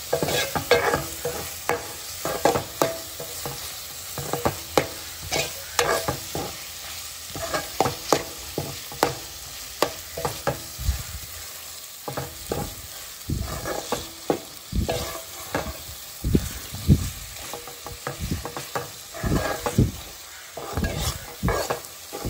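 Metal spatula scraping and knocking against a large aluminium pot as dried squid gravy is stirred, over a steady frying sizzle. The gravy is cooking uncovered and being stirred constantly so the squid's moisture cooks off and it fries down thick.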